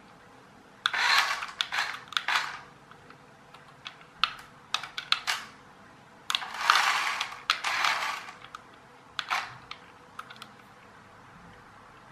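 Toy-grade radio-controlled car driving in several short bursts on a wooden floor: its small electric drive motor and plastic gearing whirring and rattling, with clicks, stopping and starting between bursts.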